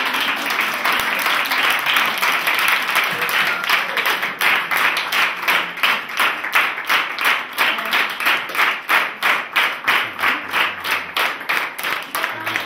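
A crowd applauding. About halfway through, the clapping falls into a steady rhythm of about three claps a second, in time together.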